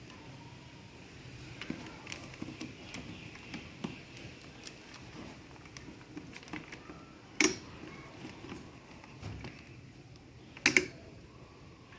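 Hard objects being handled: scattered light clicks and taps, with two louder sharp knocks, one about halfway through and a doubled one near the end.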